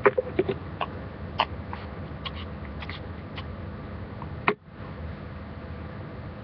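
Scattered small clicks and rustles of hands working hair and rubber bands close to a webcam microphone, with one sharper knock about four and a half seconds in, over a steady background hiss.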